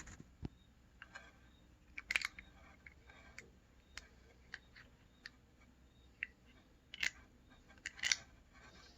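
Small metal parts of a Toyosha diesel fuel injector handled and fitted together by hand: scattered light clicks and taps, with quiet gaps between.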